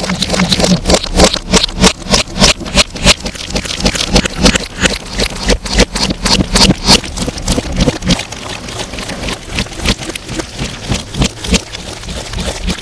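Slime being squished and worked by hand, a fast, irregular run of wet pops and crackles, heavily distorted.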